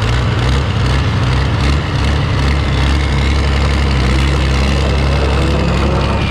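Heavy engine running steadily and loud, with a deep low rumble and no change in speed.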